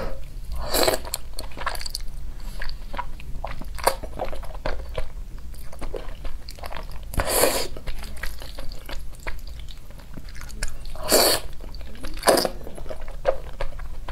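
Close-miked wet chewing and mouth smacking of spicy instant noodles, with about four longer, louder slurps of noodles being sucked in.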